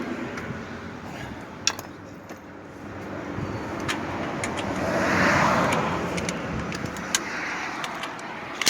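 A car driving past, its sound swelling to a peak about five seconds in and then fading, with a few sharp clicks over it.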